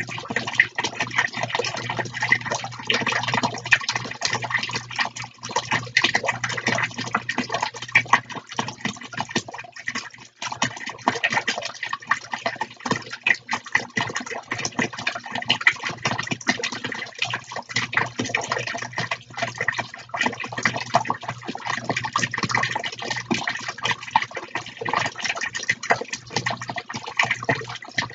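Water jets of two small tabletop fountains splashing and pattering back into their plastic basins: a steady, dense splashing with a low hum underneath.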